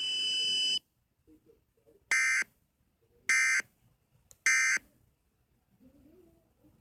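Emergency Alert System End-of-Message code: three short, identical, screechy digital data bursts about a second apart, closing the alert. Under a second in, a steady noisy tone cuts off just before the bursts.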